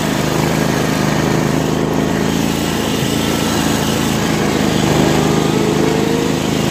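Riding lawn mower's small engine running steadily as it drives through snow.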